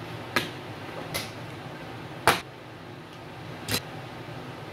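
Woodworking clamps being handled and taken off a plywood frame: four sharp clacks of clamp parts knocking against the wood and each other, the third the loudest. Under them runs a steady fan-like hum.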